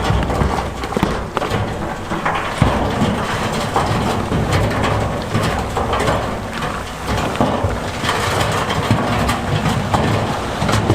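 Big stones clattering and knocking against each other as heavy machinery moves them, over a heavy diesel engine running.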